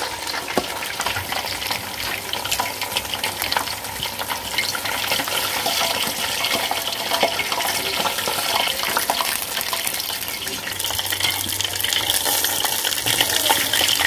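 Chicken drumsticks deep-frying in hot oil in a pot: a steady sizzle with many small crackling pops.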